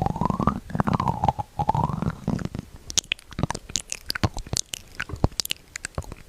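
Close-miked ASMR mouth sounds. For the first two seconds a wavering tone glides up and down over a low rumble, then a fast run of sharp wet clicks and crackles.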